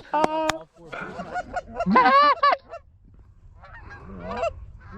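Geese honking: a few short, pitched honks and clucks, the loudest about two seconds in and a weaker one near the end.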